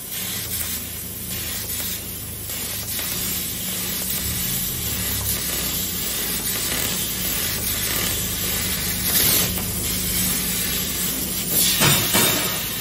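Laser cutting machine cutting sheet metal: a steady hiss of assist gas jetting from the cutting head, with a low mechanical hum from the machine underneath. The hiss swells briefly about nine and twelve seconds in.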